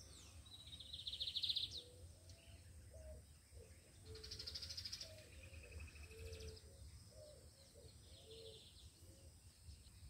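Birds calling faintly: two quick high trills, one about half a second in and one about four seconds in, over scattered short low notes, with a faint low rumble underneath.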